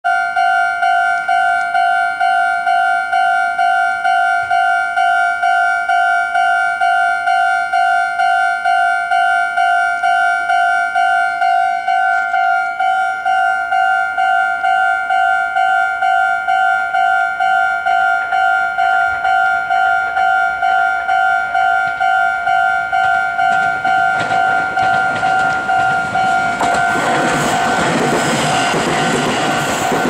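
Japanese level-crossing electronic warning bell ringing steadily, one high tone repeated about two and a half times a second. In the last few seconds the noise of a Meitetsu 9500 series electric train grows and the train passes over the crossing, its wheel and running noise nearly covering the bell.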